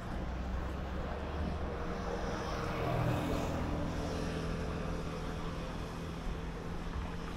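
An engine running with a steady low hum, growing louder about three seconds in and then easing off, as of a motor vehicle passing.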